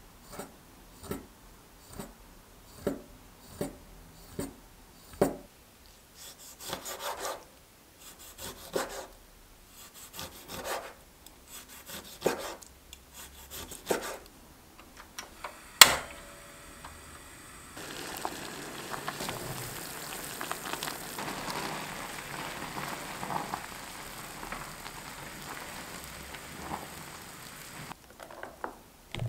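Chef's knife slicing squid into strips on a wooden cutting board: separate short cutting knocks, roughly one a second, with one sharp louder click about halfway through. Then a steady watery rush for about ten seconds, as ramen noodles and their cooking water are poured into a plastic colander near the end.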